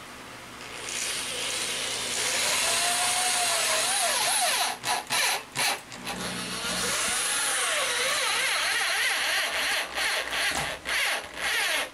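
Cordless drill working into a wooden two-by-four: a steady run of a few seconds, a cluster of short stop-start bursts, a second long run, then more short bursts near the end, the motor's pitch wavering as it loads up.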